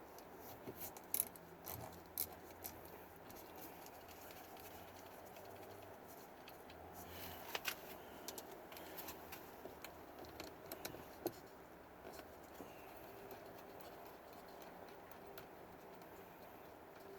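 Faint, scattered clicks and light scratching of hands and a tool working on the car door's mirror mount, quiet between the clicks.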